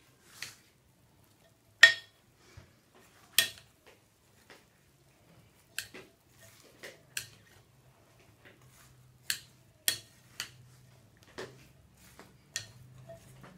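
A spoon stirring chopped banana, apple and pomegranate in a glass mixing bowl, knocking and clinking against the glass at irregular intervals.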